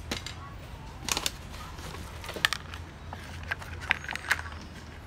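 Plastic clicks and taps from the document feeder tray and covers of an HP LaserJet Pro MFP M227fdw laser printer being handled, a few sharp clicks scattered irregularly over a steady low hum.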